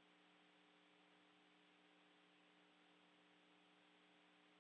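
Near silence: a faint steady hiss with a low electrical hum.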